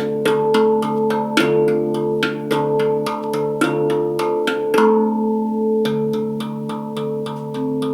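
Handpan played with the hands: quick taps, about four a second, each note ringing on over a steady low drone of overlapping tones. About five seconds in the taps stop for nearly a second while one low note rings alone, then the tapping resumes.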